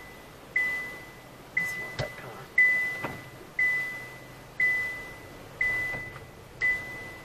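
A single-pitched high chime ringing about once a second, each ring struck sharply and fading out before the next.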